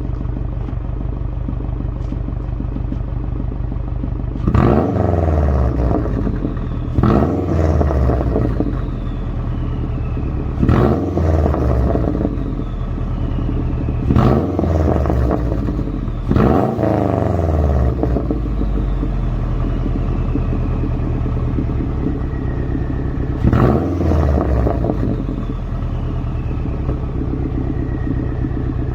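2008 Subaru WRX's turbocharged flat-four engine idling and revved six times, each rev followed by a falling turbo whistle as the engine drops back to idle.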